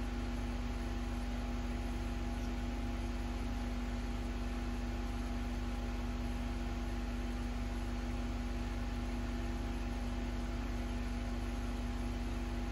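Steady machine hum: a low drone with a few steady tones over an even hiss, unchanging throughout.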